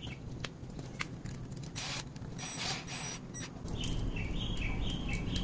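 Light metallic clicks and taps as small steel parts of a car door check are handled and fitted together, with a run of short high chirps in the background over the last second and a half.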